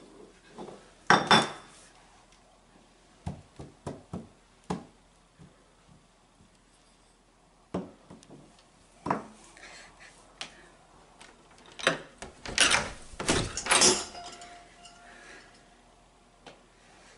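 Scattered clinks and knocks of a glass bottle and forks being handled and set down on a wooden floor, with a denser, louder clatter about twelve to fourteen seconds in.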